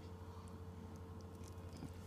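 Steady low electrical hum, with a few faint wet clicks from a cat licking and mouthing at the tip of a plastic feeding syringe.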